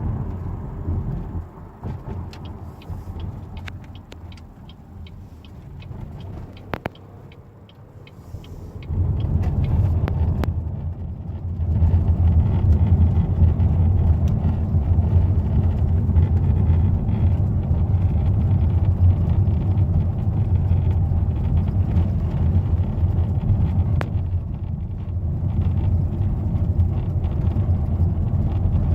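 Dashboard rattle in an Opel car heard from inside the cabin: sharp irregular clicks and rattles over engine and road rumble, which grows much louder about nine seconds in and again a few seconds later. It is a rattle that an Opel workshop has twice failed to cure.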